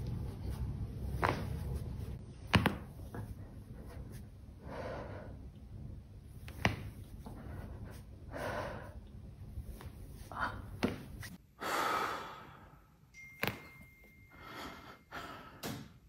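Several sharp, separate pops of a spine cracking under the weight of someone standing and stepping on the back of a person lying face down. Short breathy exhalations from the person being pressed come in between.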